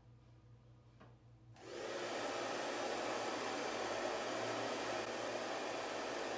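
Hair dryer with a diffuser attachment switched on about a second and a half in, then blowing steadily. She pixie diffuses, turning the dryer off before each new section of hair and back on again.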